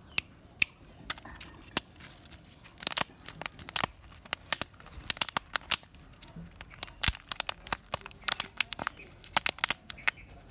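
Foil wrapper of a Kinder Surprise chocolate egg crinkling and tearing as it is peeled off, in many sharp, irregular crackles that come thickest about three seconds in and again through the second half.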